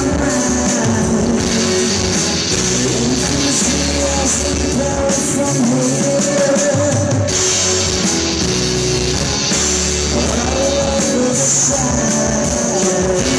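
A rock band playing live, with guitars over a drum kit, heard from the audience in a concert hall.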